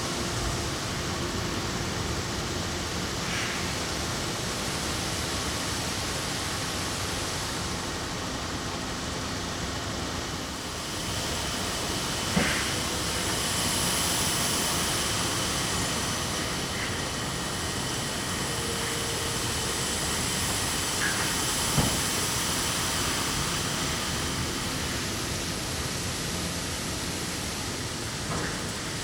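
Corn-harvesting machinery running steadily, a continuous rushing mechanical noise, with brief knocks about twelve seconds in and again about twenty-two seconds in.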